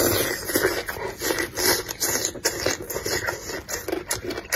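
Close-miked eating sounds: a spicy chicken foot slurped into the mouth and chewed, with many quick wet smacks and clicks.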